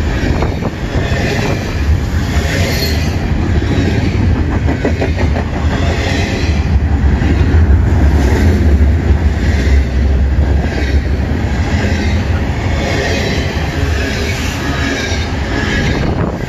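Double-stack intermodal freight train's loaded well cars rolling past close by at speed: a loud, steady rumble and clatter of steel wheels on the rails.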